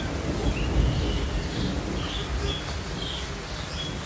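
A bird giving a string of short, high chirps over a steady low rumble and hiss of stormy weather.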